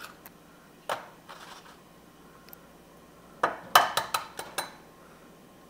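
Eggs being cracked on the rim of a bowl and handled in the kitchen: a sharp tap about a second in, then a quick run of taps and clinks about three and a half to four and a half seconds in.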